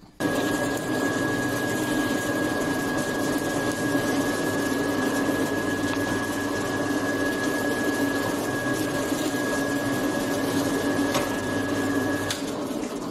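Bench drill press running, its Forstner bit boring into a wooden board: a steady motor hum with a high, even whine. It switches off near the end and winds down.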